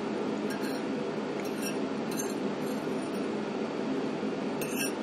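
A metal fork clinking and scraping against a dinner plate as food is picked up: about five light, short clinks, the last near the end. A steady background hum runs underneath.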